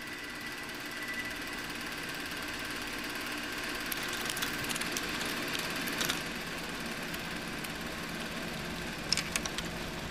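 Film projector running: a steady mechanical whir and hum with scattered crackling clicks, and a quick run of sharp clicks near the end.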